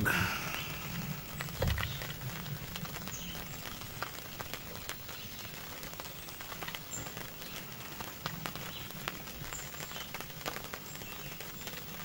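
A dog eating chunks of beef from a bowl: irregular small clicks and smacks of chewing, with a soft knock about two seconds in.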